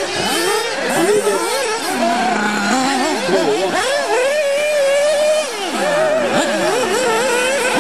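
Several 1/8-scale nitro RC buggy engines whining together, their pitches rising and falling as the buggies accelerate and brake around the track. Partway through, one engine holds a steady high note for about a second and a half.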